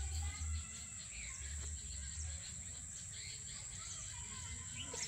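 Outdoor ambience of birds chirping with many short calls over a steady high-pitched insect drone, with low rumbles in the first couple of seconds.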